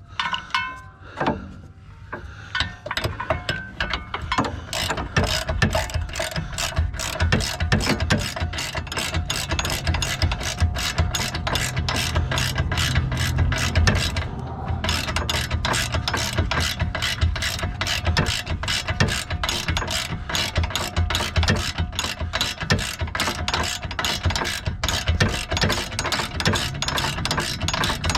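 Hand socket ratchet clicking rapidly in repeated back-and-forth strokes as it turns a 22 mm bolt, with a short break about halfway through.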